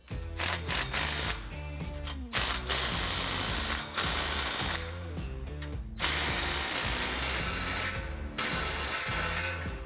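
Cordless drill-driver running in about five bursts of one to two seconds each, driving the nuts of an exhaust clamp tight.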